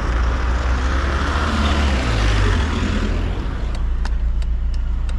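A car's engine idling with a steady low rumble, while a rushing noise swells and fades over the first three seconds or so. About three and a half seconds in, a regular clicking sets in, about three ticks a second.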